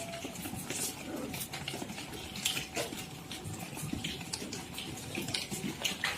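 Goats moving about in a pen: irregular light clicks, knocks and rustles.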